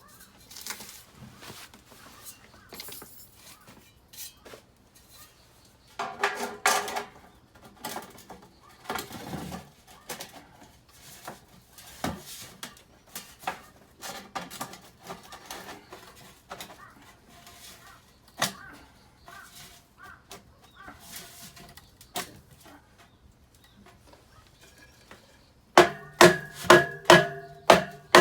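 Scattered knocks and clanks, with a louder ringing clang about six seconds in. Near the end comes a steady run of hard strikes on ringing metal, about three a second.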